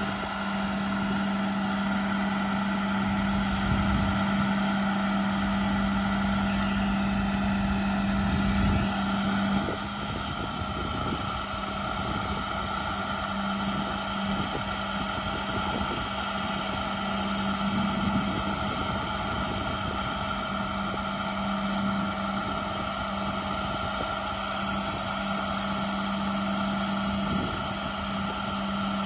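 Diesel engine of an International 7400 truck running steadily to power the hydraulics of an Elliott S70R Skywalk sign crane while its boom is being lowered. The engine gives a constant, even hum throughout.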